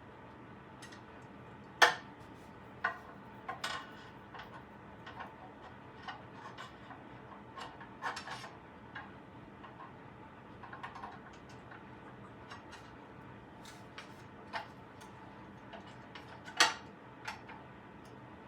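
Irregular clicks and light knocks of lamp parts being handled and fitted together during assembly, sharpest about two seconds in and near the end.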